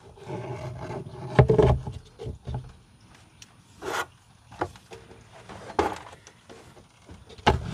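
Plastic funnel knocking and rubbing as it is worked down into an engine's oil filler neck. A few scattered knocks and scrapes come through, the loudest about a second and a half in and again near the end, over a steady low hum.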